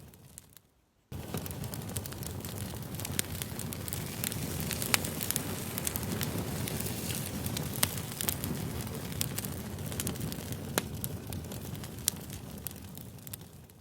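Campfire burning, a steady low rumble and hiss with frequent sharp crackles and pops of burning wood. It cuts out briefly about a second in, returns abruptly, and fades down near the end, as a looped recording does.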